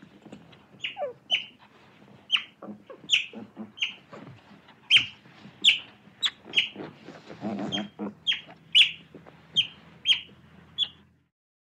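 Otter giving a string of short, high squeaky chirps, each dropping in pitch, about one to two a second, with a lower, rougher call about two-thirds of the way through. The calls stop suddenly near the end.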